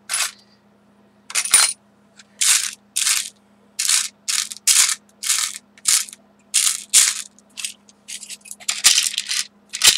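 Small craft embellishments being rummaged through by hand in a storage bin, clattering and rustling in short, separate bursts about every half second.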